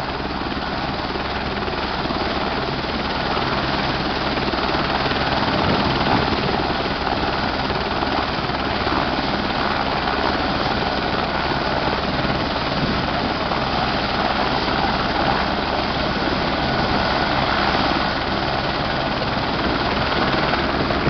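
Helicopter turbine engine and main rotor running steadily at flight power, with a fast, even blade chop under the turbine noise.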